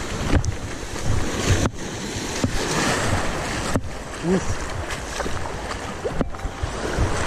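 Sea surf washing and foaming over a rocky reef shore, with wind rumbling on the microphone. The sound breaks off sharply three times.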